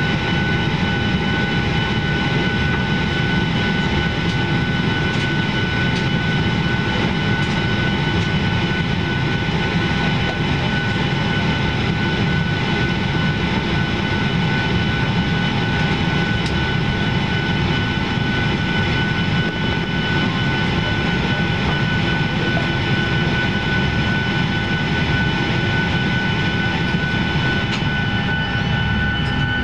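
Boeing 737-700's CFM56-7B jet engines running steadily at low power while taxiing, heard inside the cabin as a constant low rumble with a steady high whine.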